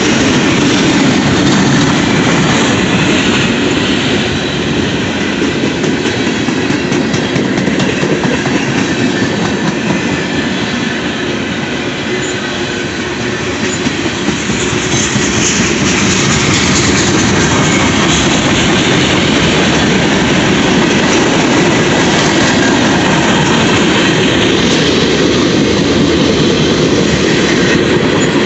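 Freight cars of a CSX manifest train rolling past, a steady loud rumble and clatter of steel wheels on the rails, with faint high wheel squeal about halfway through.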